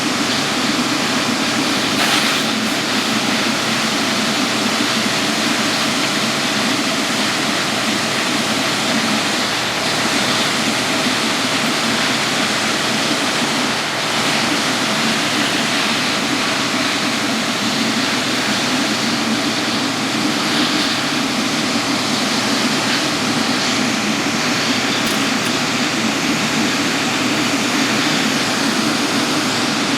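Steady jet engine noise from the Boeing 777-9's GE9X turbofans, an even rushing sound that holds the same level throughout.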